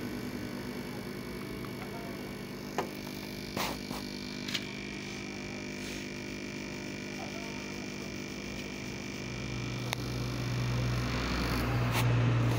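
Steady electrical hum with a few light clicks a few seconds in. About ten seconds in, a low motor drone swells in and is loudest near the end.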